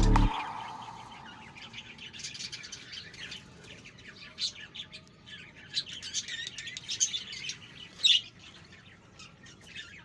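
Background music cuts off just after the start, leaving a flock of budgerigars chirping and chattering in quick, high twitters, with one louder call about eight seconds in.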